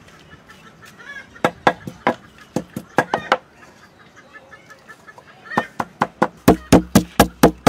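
Wooden pestle pounding in a wooden mortar, sharp knocks: a few spaced strokes in the first seconds, then a quicker run of about five strokes a second from about five and a half seconds in.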